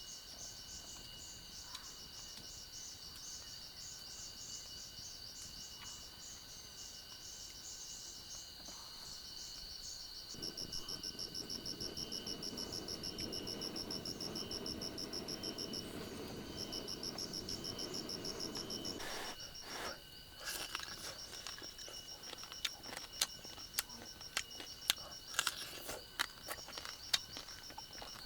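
Rainforest insects, crickets and the like, chirring steadily in several high tones. Midway a rapidly pulsing call joins them over a low rushing hum for several seconds. In the last third come scattered sharp clicks and ticks.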